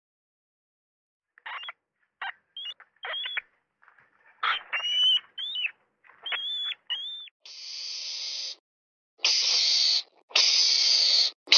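A rat squeaking: a string of about eight short, high squeaks, each rising and falling in pitch. From about seven and a half seconds in, a mongoose hisses four long, harsh hisses with short gaps between them.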